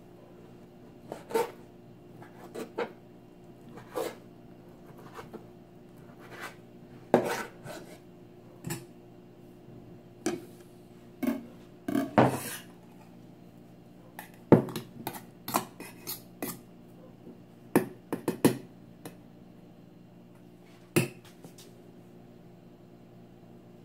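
Irregular clatter of kitchen utensils on a wooden cutting board: a chef's knife knocking on the board as fish is sliced, and a stainless steel bowl and metal spoon being handled, about twenty short, sharp knocks and clinks.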